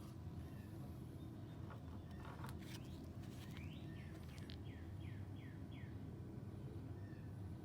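Steady low background hum with a few faint clicks, and a bird calling a run of five quick down-slurred chirps about four seconds in.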